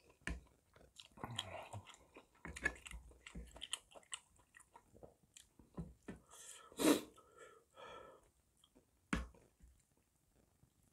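A person chewing a mouthful of spicy gopchang (intestine) hotpot close to the microphone: a run of wet, crackly mouth clicks. There is a sharp knock a little after nine seconds, likely the wooden spoon against the metal lunchbox tin.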